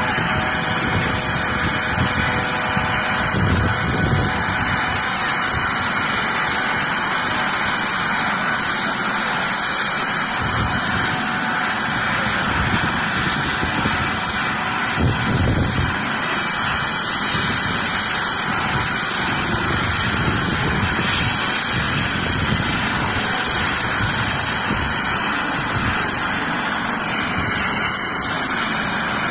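US Coast Guard MH-65 Dolphin helicopter running on the runway with its rotor turning: a steady high turbine whine over loud rotor and engine noise.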